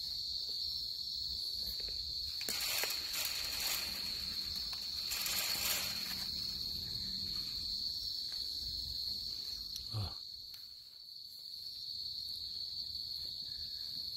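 Crickets trilling in a steady, high-pitched chorus. Rustling comes twice near the start, and there is a short soft bump about ten seconds in.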